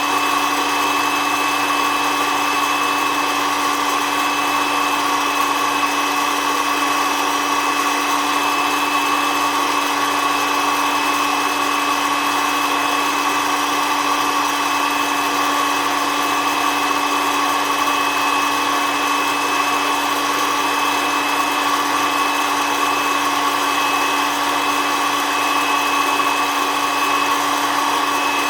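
Hot-air coffee roaster (SOUYI SY-121N) running steadily: its blower motor makes a constant whine over the hiss of rushing air, with no change in pitch or level.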